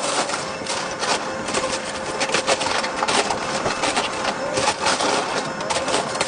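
Excavator running with a steady whine while it demolishes a house, the wood and debris cracking and clattering in many quick, irregular snaps.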